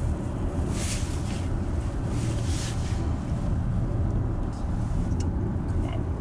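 Cabin noise of a Dodge Hellcat with its supercharged V8, driving slowly on a snowy, slippery highway: a steady low rumble of engine and road noise, with brief hissing swishes every second and a half or so.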